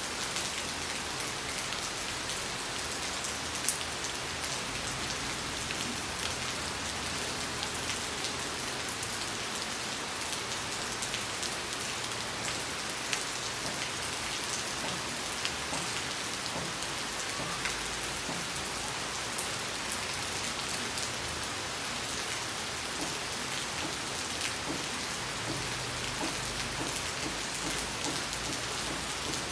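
Steady rain falling on puddled, waterlogged ground: an even hiss, with a few sharper drop hits now and then.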